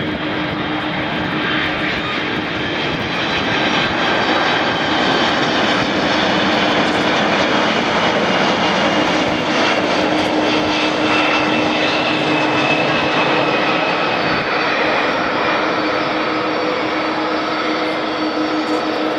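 Boeing 747-400 airliner's four jet engines on landing approach: a steady jet roar with several whining tones running through it, a little louder through the middle as the aircraft passes close by.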